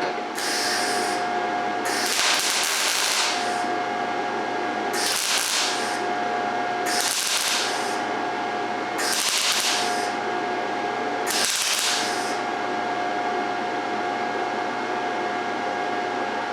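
MIG welder arc crackling in six short bursts of about a second each, stitch-welding at 18 volts and 105 wire speed with 75/25 argon-CO2 shielding gas. A steady hum runs between the bursts, and the last twelve seconds or so hold only that hum.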